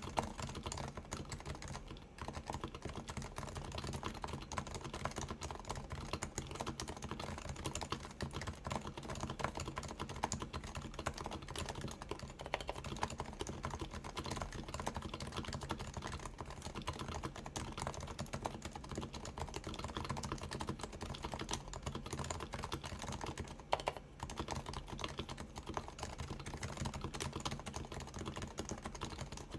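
Steady, fast typing on a Keyhub Design RF-8X keyboard with 45 g Topre domes, silenced with sliders and silencing rings: a dense stream of keystrokes with brief pauses about two seconds in and again near twenty-four seconds.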